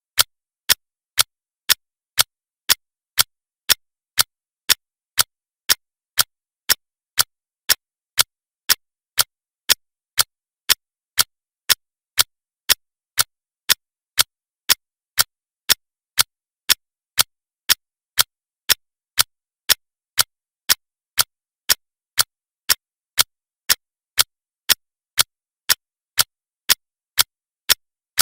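Clock ticking in a steady tick-tock, about two sharp ticks a second.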